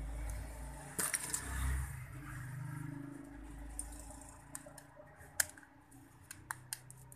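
A small plastic keypad mobile phone (Nokia 220) being handled, with a sharp click about a second in and a quick run of light clicks in the second half, over a low hum.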